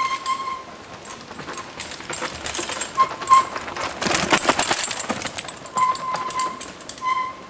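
Mountain bike rolling past close on a dirt forest trail: rapid ticking from the coasting freewheel and rustle of the tyres on dirt, loudest about four seconds in as it passes. Short ringing tones come and go.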